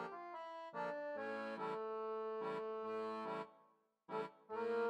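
Background music: sustained chords played by a reedy instrument, breaking off about three and a half seconds in, with a couple of short notes near the end.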